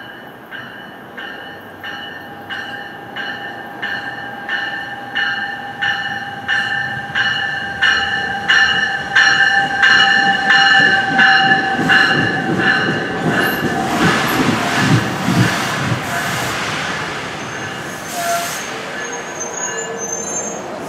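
NJ Transit push-pull commuter train arriving at a station platform, its bell ringing in even strokes a bit under two a second and growing louder as the cab car approaches. In the second half the bell fades under a rumble and high wheel and brake squeal as the train slows to a stop.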